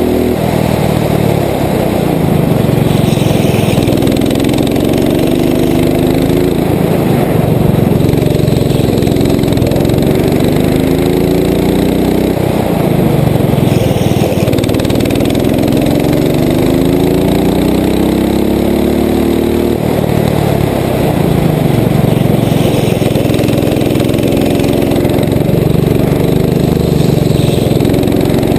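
Rental go-kart engine heard close up from on board the kart, its pitch rising on each straight and dropping off into the corners, about four times over.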